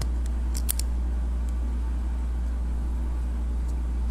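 A few faint, sharp plastic clicks as a small cassette-tape transforming toy's parts are worked by hand, its bottom wheels being pulled out, over a steady low hum.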